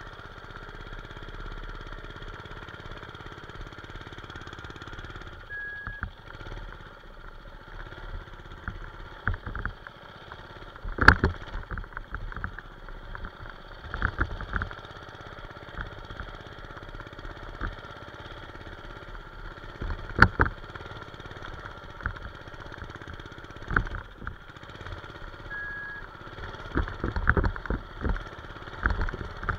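Manco Streaker mini bike's small engine running while riding over a bumpy dirt track, with frequent knocks and rattles from the bumps. The sharpest knocks come a little over a third of the way in and again about two thirds in.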